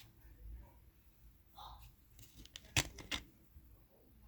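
Plastic CD cases being handled, with two sharp clicks a little under half a second apart near the end.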